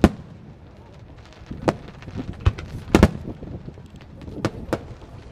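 Aerial fireworks shells bursting in a starmine barrage: about eight sharp booms at uneven intervals. The loudest come at the start and around three seconds in, with a low rumble between them.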